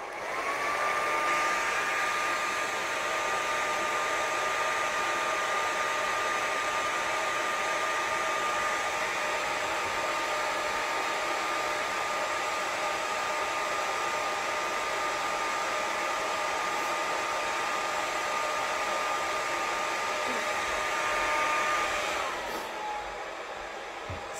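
Handheld hair dryer with a diffuser attachment running, a steady rush of air over a motor whine. The whine rises in pitch just after the start as the motor speeds up, holds steady, then drops in pitch and fades about two seconds before the end.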